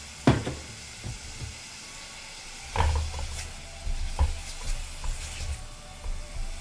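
Minced mirepoix vegetables sizzling gently in olive oil in a pan, with a sharp knock near the start and several knocks and scrapes around the middle.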